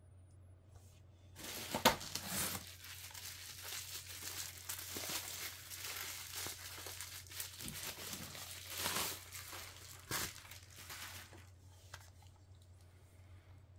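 Plastic packaging being crinkled and torn open, a crackly rustle that starts about a second and a half in, with a sharp crack at the start, and dies away a couple of seconds before the end.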